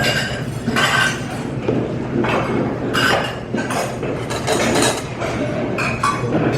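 Dishes and cutlery clinking, a series of short sharp knocks with brief ringing.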